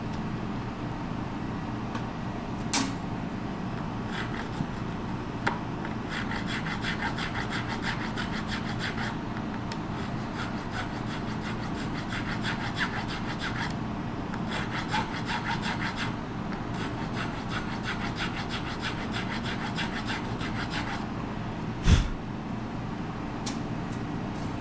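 Hand filing or sanding on wood in several runs of quick back-and-forth strokes, with short pauses between runs. A single sharp knock comes near the end.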